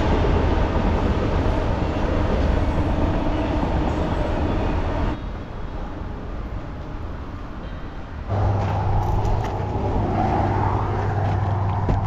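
Steady rumble of passing vehicles with a low hum. It drops away suddenly about five seconds in and returns about three seconds later.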